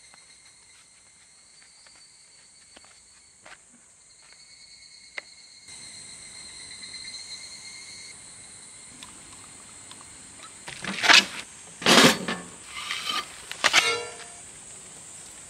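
Steady high-pitched chirring of crickets. Near the end come four or five loud, brief noises of unclear source, the last with a short ringing tone.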